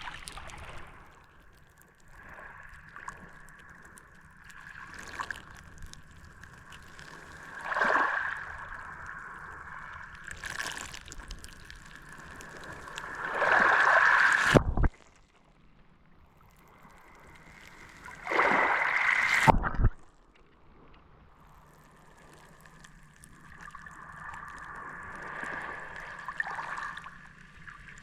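Mediterranean sea waves washing onto the beach, coming in surges several seconds apart; the two loudest break in the middle and cut off sharply.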